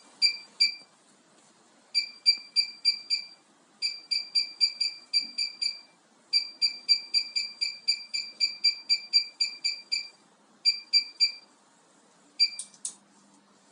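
An electric fireplace's control unit beeping: short, high electronic beeps in quick runs of several a second, with pauses between the runs. Each beep acknowledges a button press on the remote or the panel.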